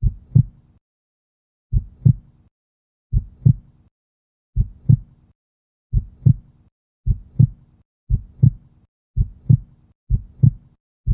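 Heartbeat sound effect: low double thumps in a lub-dub pattern, repeating and speeding up from about one every two seconds to about one a second.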